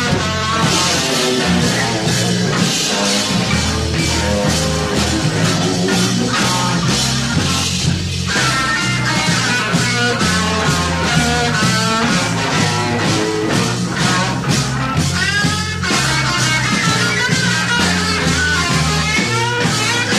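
Live psychedelic rock band playing an instrumental passage: a wavering lead line over bass and drums, with no singing.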